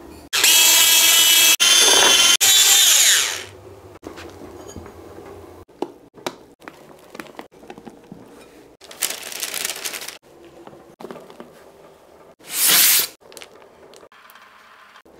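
Electric hand mixer whipping egg whites and sugar into meringue for about three seconds, its motor winding down at the end. Then come quieter scraping and folding sounds of a spatula in a glass bowl, with two short louder noises later on.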